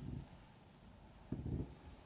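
Kitchen knife cutting down through a no-bake chocolate cheesecake with a chocolate-cookie crust: short, dull sounds as the blade pushes through, one trailing off at the start and another about a second and a half in.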